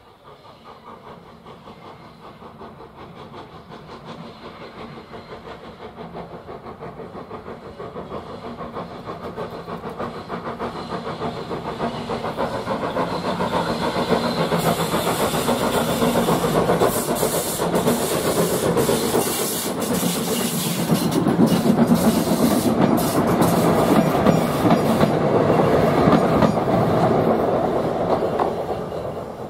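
A GWR Hitachi Intercity Express Train passing at speed on the main line: its noise builds steadily for about fifteen seconds into a loud rush of wheels and air with a rhythmic clatter over the rail joints, then begins to fade just before the end.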